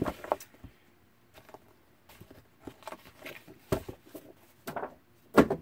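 Sheets of 12x12 patterned scrapbook paper being handled on a table: scattered short rustles, slides and soft taps as sheets are separated and laid down.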